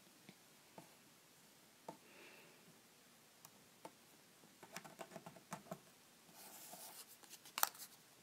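Faint taps and rustles of paper cutouts being handled on a paper phone mock-up: scattered small clicks, a quick run of them about halfway through, a short rustle, then a sharper tap near the end.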